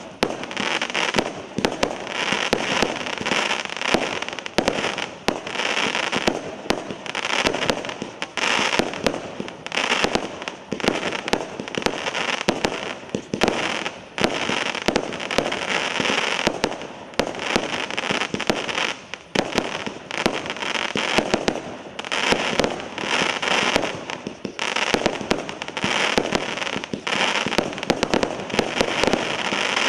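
Maxsem MC114 'Golden Spider' 20 mm, 100-shot firework cake firing: a rapid, unbroken series of launch thumps and small aerial star bursts, several shots a second, with a haze of crackle between them.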